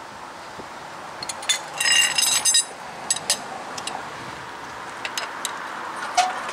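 Light metallic clinks of lug nuts and a socket being handled at a car wheel, with a short ringing clatter about two seconds in and scattered single clicks after it.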